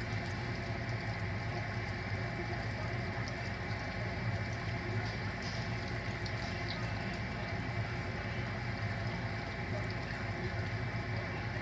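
Big potato logs deep-frying in hot oil: a steady bubbling sizzle with faint crackles, over a steady low hum.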